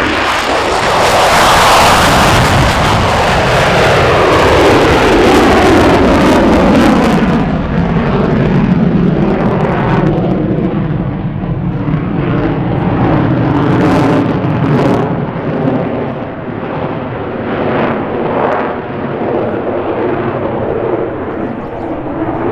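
Loud jet noise from a USAF F-35A Lightning II's single Pratt & Whitney F135 turbofan at high power as it passes low after takeoff and climbs steeply away. The pitch falls over the first several seconds as it goes by, then the noise continues, slightly quieter and wavering, from high overhead.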